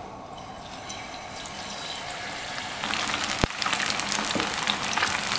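Beer-battered fish pieces frying in a pan of hot oil: a sizzle that builds and turns to loud crackling about three seconds in, with a single sharp click soon after.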